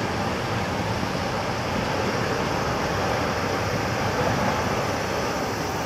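Jet engine noise from an Airbus A380-861's four Engine Alliance GP7200 turbofans as the airliner taxis onto the runway: a steady, even rushing sound with no change in pitch.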